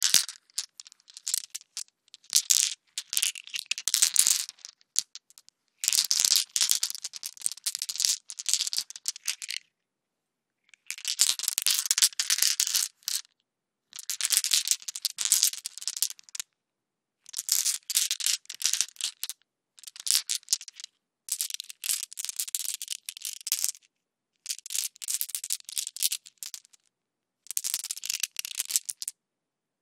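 Marbles handled in the hands, clicking and rattling against each other in a run of dense bursts a few seconds long, each broken off by a brief silence.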